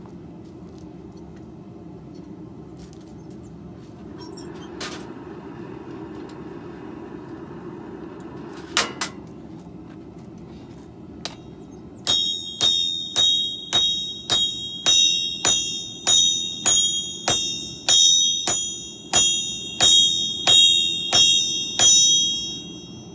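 Hammer blows ringing on steel and an anvil, struck steadily at about two blows a second for some ten seconds, each blow leaving a bright metallic ring. A steady low hum runs underneath, with a couple of single knocks before the hammering begins.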